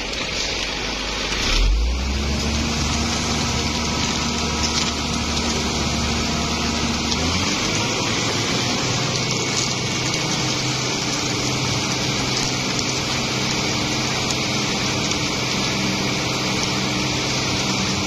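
Concrete mixer truck's engine running steadily while its drum turns and discharges concrete down the chute. About two seconds in a deep engine note comes in, and about seven seconds in it shifts to a higher steady pitch.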